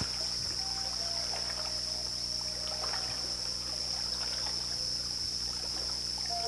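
A steady, high-pitched insect drone over a faint wash of water, with a few faint held musical notes coming in.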